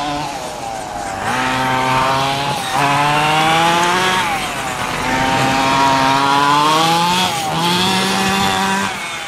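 Small two-stroke petrol engine of a 1:5 scale Himoto RC monster truck revving hard as it drives, its pitch climbing in about four bursts of throttle with short drops between.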